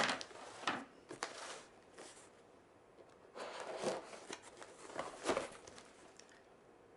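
A shipping box being opened by hand, its packaging rustling and scraping in several short bursts, dying down near the end.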